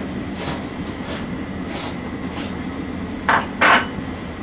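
A person slurping thin yakisoba noodles from chopsticks: a series of short sucking slurps, with the two loudest about three seconds in, then chewing.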